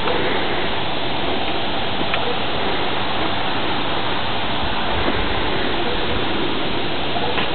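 Steady, even rushing noise at a constant level throughout, with no distinct events apart from a couple of faint ticks.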